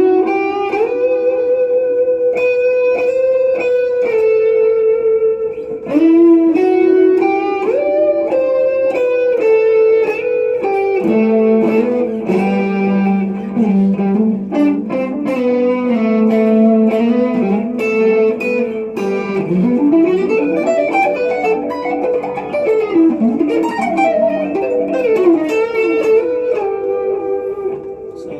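Squier Classic Vibe Stratocaster electric guitar played through a Zoom G2X Four multi-effects pedal: a lead line of long sustained notes with vibrato, turning to quicker phrases full of string bends and slides in the second half.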